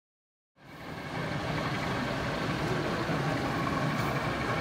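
Silent for the first half-second, then the engine sound of a model diesel locomotive fades in and runs steadily at idle.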